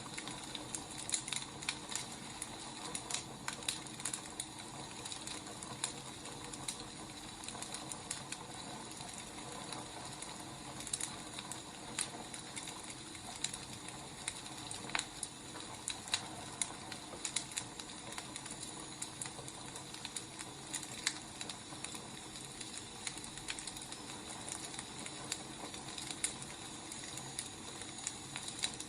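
Burning firewood crackling: irregular snaps and pops over a steady soft hiss.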